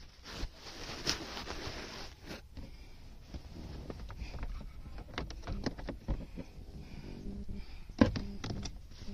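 Rustling and scattered clicks and knocks from hands handling LED-strip wiring and trim in a car's footwell, with a sharper knock about eight seconds in.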